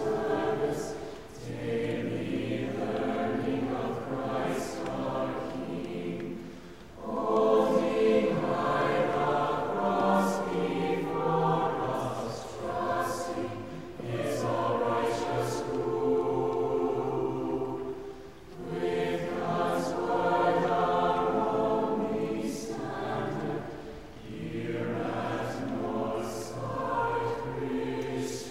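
Choir singing in long sustained phrases, with brief pauses between phrases.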